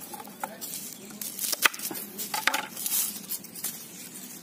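Scattered knocks and light clinks of cookware and utensils being handled, a few ringing briefly.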